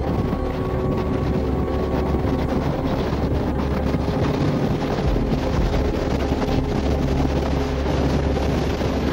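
Passenger train running: a steady rumble and rushing, wind-like noise over a low drone.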